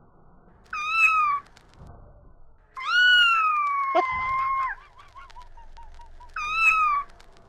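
Domestic cat meowing three times: a short meow, then a long drawn-out one of about two seconds, then another short meow.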